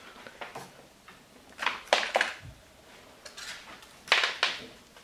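Irregular plastic clattering and knocking from kittens playing at a ball-track toy on a wooden floor, loudest in two short bursts about two and four seconds in, with a low thump between them.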